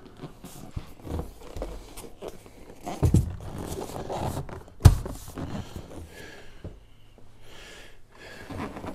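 A padded vinyl bass-boat center seat and backrest being pushed and tamped down into place: rustling and shuffling handling noise, a heavy dull thud about three seconds in, and a sharper knock just before five seconds, the loudest sound.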